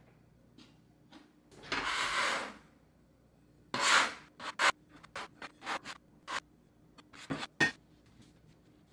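Metal bench scraper scraping across a wooden board, pushing flour and beaten egg together into a shaggy pasta dough: one longer scrape, then a loud one and a run of short scrapes.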